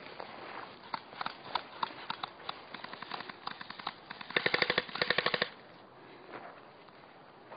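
Airsoft guns firing: scattered single pops, then a rapid full-auto burst of about a dozen shots a second, about four seconds in, lasting just over a second.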